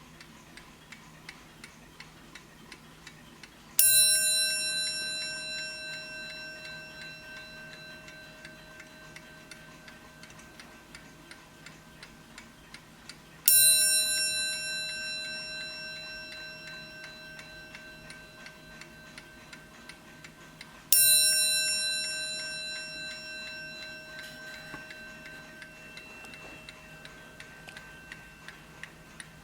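Hermle 8-day skeleton mantel clock ticking steadily, its bell struck three times well apart, each stroke ringing out and fading over several seconds.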